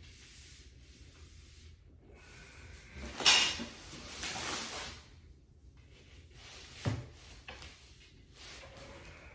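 Flat-pack furniture parts being handled and fitted: scraping and rustling, a sharp loud clatter about three seconds in, and a dull thump near seven seconds.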